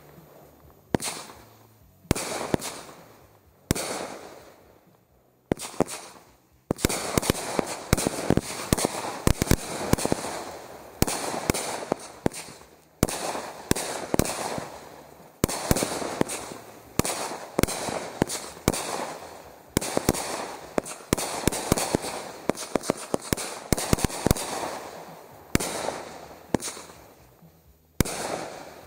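A consumer firework cake firing aerial shots: sharp bangs of launches and bursting shells, each trailing off in a fading rush of noise. For the first few seconds they come about a second apart, then turn into a dense, rapid run of shots and breaks that eases off near the end.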